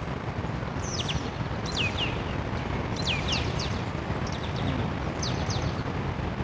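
Birds chirping: short, high calls that slide downward, in little groups of two or three. Under them runs a steady low rumble.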